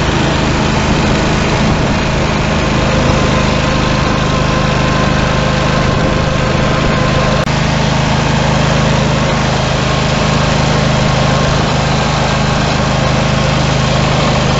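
Simplicity 20 GTH garden tractor engine running at a steady speed while the tractor plows snow with its front blade.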